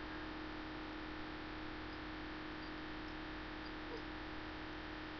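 Steady background hiss with a constant low mains hum from the recording microphone, and one faint tick about four seconds in.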